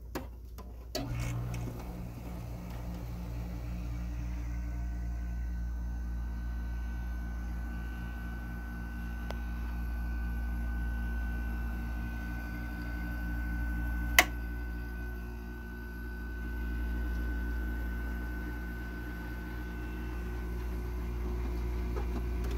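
Haier 5,000 BTU window air conditioner's Rechi compressor kicking on about a second in, then running with a steady hum and a faint whine, the fan slowed right down. A single sharp click comes about two-thirds of the way through.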